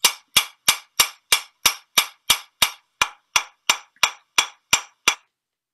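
Ball-peen hammer striking steel rivets on a rapper sword laid on a railway-track anvil, peening the rivets flat. The blows are quick and even, about three a second, each with a short metallic ring, and they stop about five seconds in.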